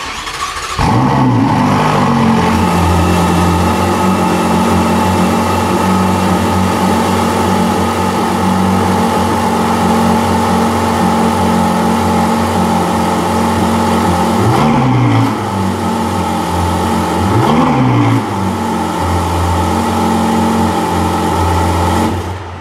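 Ferrari 488 GTB's twin-turbo V8 starting up with a rev flare, then settling to a steady idle through the exhausts. Two brief throttle blips about 15 and 17 seconds in, and the engine cuts off suddenly near the end.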